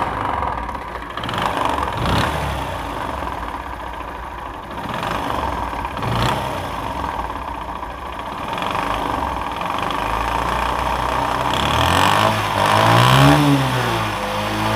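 Bajaj CT 100's small single-cylinder four-stroke engine running with an abnormal rattling knock, then revved up and let back down twice near the end. The noise is a fault in the old engine, suspected to come from the connecting rod.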